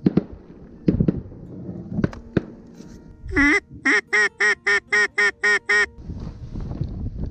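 Duck call being blown by a hunter: one longer note, then a run of eight short, evenly spaced quacks at about four a second. Before the calling come a few sharp knocks.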